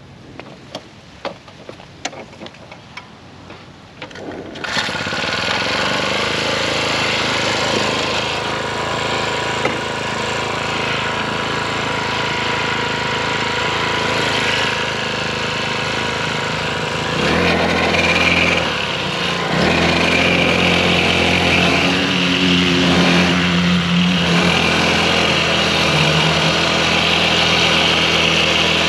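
A few clicks and rattles while the pocket bike is being started, then about five seconds in its small two-stroke engine catches and runs steadily. From about halfway through, the engine note rises and shifts as the bike is ridden off.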